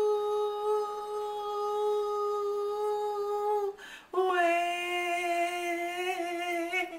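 A woman's voice holding two long notes: the first steady for nearly four seconds, then after a short break a lower one with a slight wobble.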